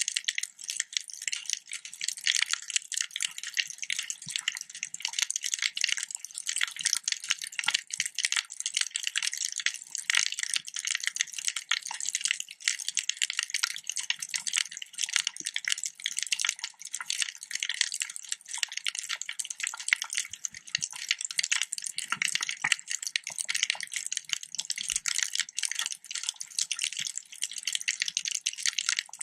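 Underwater reef ambience: a dense, steady crackle of countless tiny high-pitched clicks, with almost nothing low beneath it.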